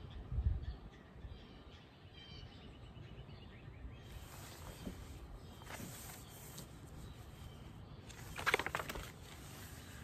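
Quiet backyard ambience with a short run of faint bird chirps about two seconds in. A low thump just after the start and a brief papery rustle about eight and a half seconds in come from handling and turning the pages of a hardcover picture book.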